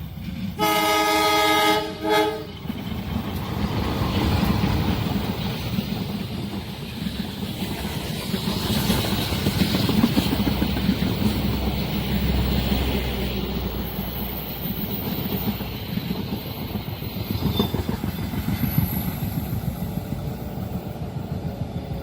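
Train horn sounding one loud blast of about a second and a half, with a short second toot right after. A train then passes at speed for the rest of the time, its wheels and cars clattering and rumbling over the rails.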